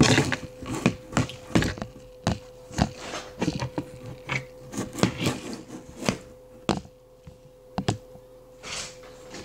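Handling noise: irregular sharp taps and knocks, about one or two a second, as a plastic baby doll is moved about on a hard tabletop. A faint steady hum runs underneath.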